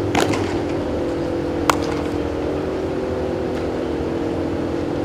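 Steady mechanical hum of large fans or ventilation in an indoor turf training facility, with a few sharp knocks of baseball fielding practice. The sharpest knock comes about a second and a half in.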